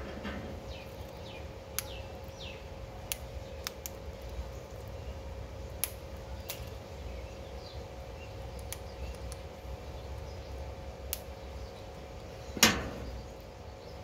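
Sharp little clicks and snaps scattered every second or two as a ringneck parakeet bites and pecks at a guava, with one much louder sharp sound near the end. A steady low hum runs underneath.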